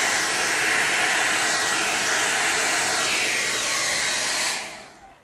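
Handheld hair dryer running steadily, blowing air onto wet acrylic paint on a canvas; it is switched off near the end and dies away.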